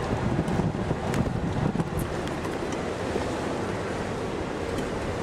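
Wind noise on the microphone: a steady low rumble, with a few light clicks in the first two seconds.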